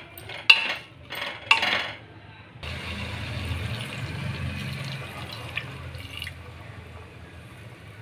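A metal spoon clinks twice against the pressure cooker pot. Then water is poured into the pot of chickpeas for several seconds, a steady rushing splash that tapers off toward the end.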